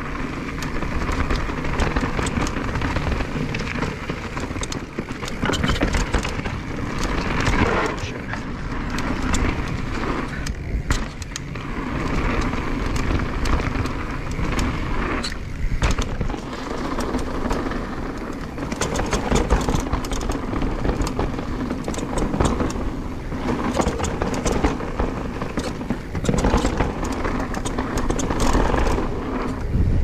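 2022 Nukeproof Dissent Comp full-suspension mountain bike riding fast downhill: knobby tyres rolling over dirt and gravel, with constant rattling and many small knocks from rough ground and a steady low rush of wind over it.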